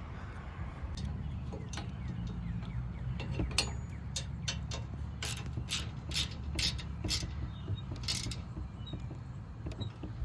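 Sharp metal clicks and taps of a wrench and hardware as a bolt and nut are tightened on a cast-iron bench leg, with a run of about half a dozen clicks in the middle. Under it runs a steady low hum.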